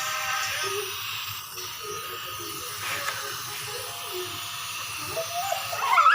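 Background music playing softly, with a voice coming in near the end.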